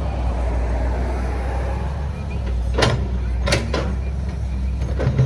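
A steady low machine drone, with sharp knocks or clacks a little past halfway and again near the end.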